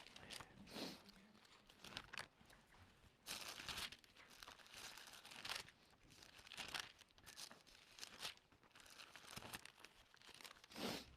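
Faint rustling of thin Bible pages being turned to find a passage: a series of brief papery swishes, the loudest one near the end.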